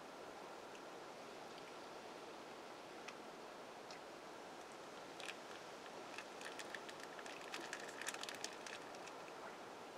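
Faint steady outdoor hiss with a run of small, sharp crackles and clicks, a few scattered ones from about three seconds in, then thick between about five and nine seconds in.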